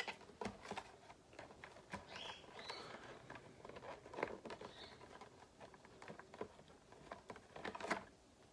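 Scattered light clicks, taps and rustles of a toy RC car and its plastic body being handled.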